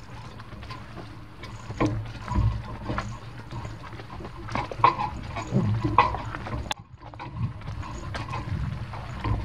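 Horse-drawn wagonette moving along a dirt track at a walk: the horse's hoofbeats with the cart's wheels and harness rumbling and knocking irregularly.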